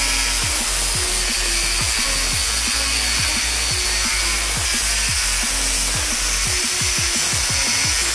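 Angle grinder's cutting disc grinding steadily through a fake Rolex GMT Master II's case and dial, a continuous high-pitched grinding. Background music with a steady beat plays underneath.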